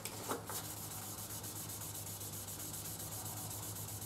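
Waterproof sandpaper wetted with WD-40 rubbing back and forth in quick, even strokes on the chromed inner fork tube of a 1993 Honda CB750F2, sanding away pitting in the chrome.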